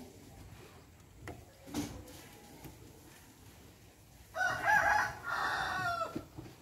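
A rooster crows once, a call of about two seconds in two joined parts that falls in pitch at the end, starting about two-thirds of the way in.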